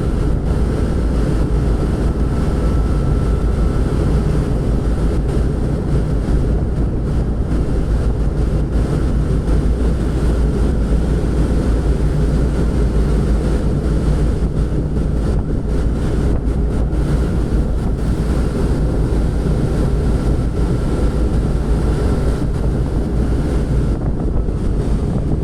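Wind buffeting the microphone over a steady low drone, with a faint high whine held at one pitch.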